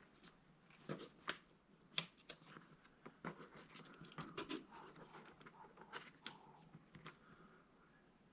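Scattered light clicks and taps at irregular intervals, as of small parts and tools being handled. The sharpest come about a second and two seconds in.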